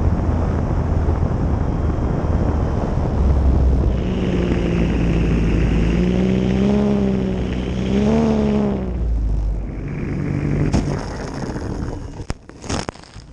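Wind and rolling noise on a belly-mounted camera of a radio-controlled DHC-2 Turbo Beaver model as it lands and runs through grass. The motor's whine rises and falls for a few seconds in the middle. Near the end come several sharp knocks and clatters as the model lands long and is stopped hard at the edge of the airstrip.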